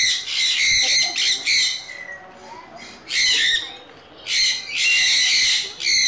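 Sun conures screeching in repeated loud, harsh bursts, with a pause of about a second near the middle.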